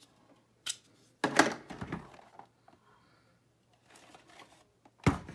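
A cardboard toy box being opened and handled: a few short rustles and knocks. The loudest come about a second and a half in and again near the end.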